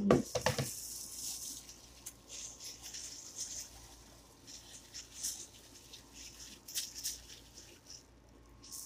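Hand working a marinated whole chicken on a stainless steel steamer tray: irregular wet rustling and scraping with a few light clicks, louder in the first second.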